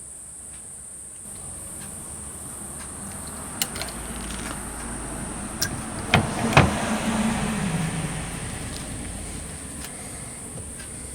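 Snap ring being fitted with circlip pliers into a motorcycle rear brake master cylinder: a few sharp clicks, the loudest pair about six seconds in, amid handling noise, over a steady high hiss.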